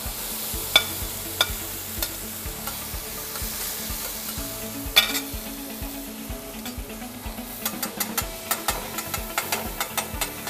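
Tomato concasse sizzling in a hot frying pan as a slotted metal spatula scrapes it off a plate and stirs it. Sharp metal clinks of the spatula against the plate and pan come now and then, then quicker near the end.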